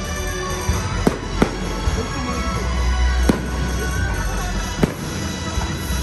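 Fireworks display: aerial shells bursting with four sharp bangs and a steady crackle of effects, over loud music.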